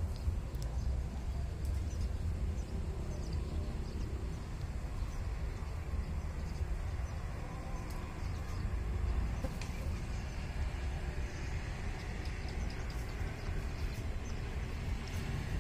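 Wind on the microphone: a steady, uneven low rumble, with faint scattered ticks above it.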